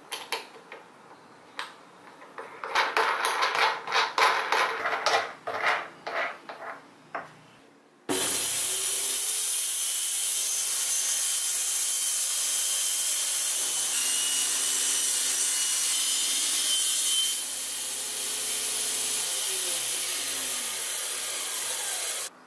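Hand-turned clamp knobs and parts clicking, knocking and rubbing on a plywood sled. About eight seconds in, this gives way abruptly to a circular saw mounted under a saw table, running loudly and steadily as the sled's base is pushed through the blade. Near the end its hum drops and glides lower as the blade slows.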